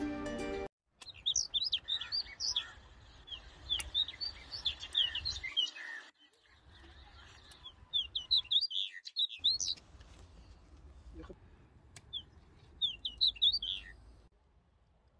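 Small birds chirping in quick twittering bursts, with a few short breaks and a few sharp clicks.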